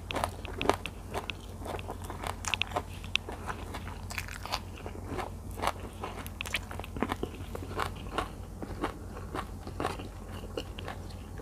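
Close-miked mouth chewing a big mouthful of sticky rice and spicy minced tilapia larb, with many irregular wet clicks and crackles.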